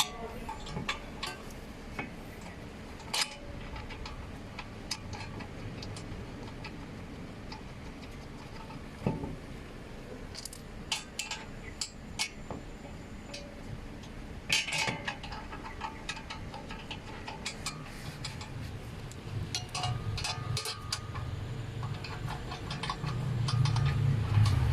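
Scattered metallic clinks and ticks of hand tools and hub bolts being handled as the new rear wheel hub bearing's mounting bolts are fitted back in. A low hum builds over the last few seconds.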